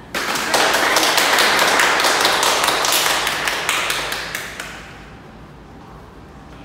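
A small group applauding: a quick patter of hand claps that starts suddenly and dies away after about five seconds.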